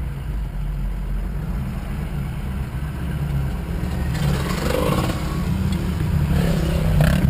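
A truck crawling along a dirt track, its engine and tyres making a steady low rumble heard from inside the cab. From about four seconds in, a dirt bike's engine joins it as the bike rides past close by, and the sound grows louder toward the end.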